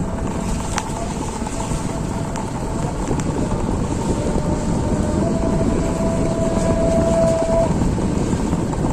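Heavy rain with wind buffeting the microphone: a loud, steady rush of noise, with a faint steady whine that comes in midway and stops near the end.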